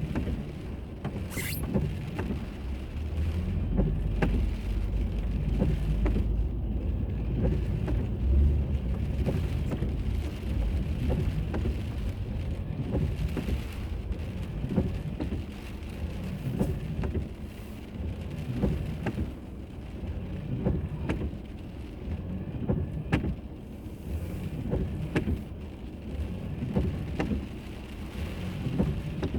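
Driving noise inside a car, picked up by a dashboard camera: a steady low rumble of road and engine, with scattered light ticks and knocks. A brief high squeak rises about a second in.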